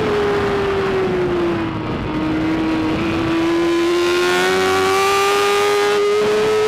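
2013 BMW S1000RR's inline-four engine at high revs under race conditions: the revs fall off over the first two seconds, then climb steadily for the rest as the bike drives on under throttle.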